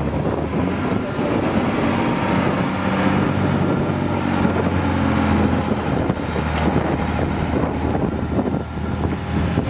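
Off-road trial truck's engine running under load as it works up through a course section, a steady low engine note with rumble.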